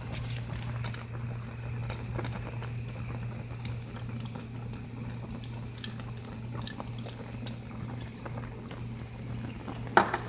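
Pot of okra soup bubbling at a boil, with scattered small pops and crackles, and one knock near the end.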